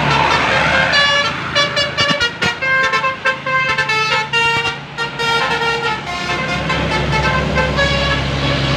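A bus's Basuri multi-tone 'telolet' horn playing a fast tune of short notes that jump up and down in pitch, over the bus engine running.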